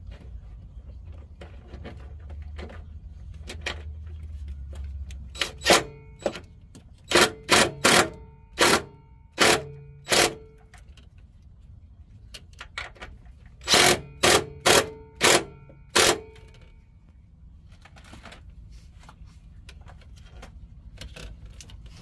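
Cordless DeWalt drill-driver run in short trigger bursts, two groups of quick pulses with a motor whine: about eight, then a pause, then five more. It is driving a screw to fix the diesel heater fuel pump to the van's frame.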